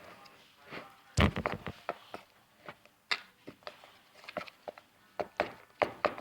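A stick stirring glue and shaving cream in a container, knocking and clicking against its sides in irregular clusters, the loudest knock a little over a second in.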